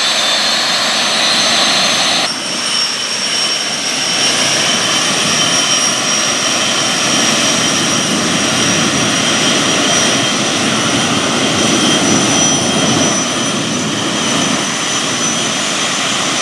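Orenda OTF-3 industrial gas turbine, an aeroderivative of the Orenda 14 turbojet, running steadily on gaseous propane during its test run: a loud, continuous rush with several steady high-pitched whining tones over it. About two seconds in, the sound shifts abruptly and the upper part of the rush drops away.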